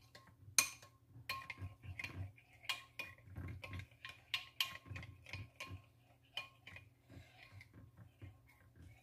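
Metal spoon stirring a thin soy-based sauce in a glass bowl, clinking lightly and irregularly against the glass.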